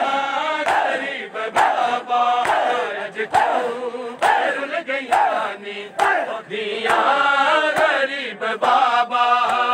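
Crowd of men chanting a Punjabi noha in unison, with hands slapping bare chests in matam, the strikes landing together about once a second.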